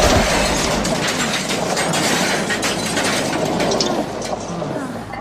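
Rumble and rapid clatter of a steam engine and its trucks on the rails.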